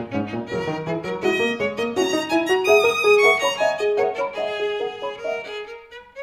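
Violin music: a fast run of quick, short notes climbing and falling, with lower strings underneath at first.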